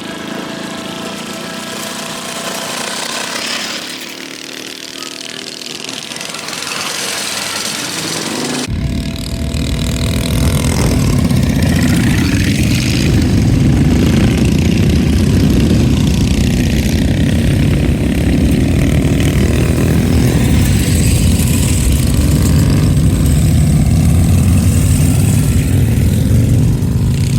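Mini bike engines running as riders circle a dirt flat track, at first thin and higher-pitched. About nine seconds in, a much louder, deep rumble cuts in suddenly and carries on.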